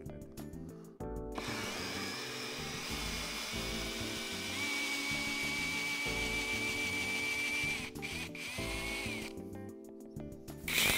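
Cordless drill running in reverse, turning a screw extractor that backs a damaged hex-head screw out of wood. The motor's steady whine starts about a second in and stops with a couple of clicks near eight seconds, over background music.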